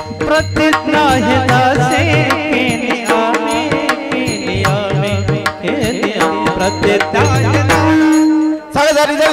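Indian devotional bhajan music: a wavering sung melody, probably a wordless vocal passage, over hand-drum strokes and steady held notes. The music drops out briefly near the end, then resumes.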